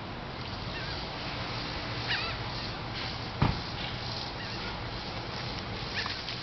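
Ibizan hound giving two short, high, squeaky whines of excitement as it waits for a fetch ball, about two seconds in and again near the end as it leaps; a single sharp click about halfway through.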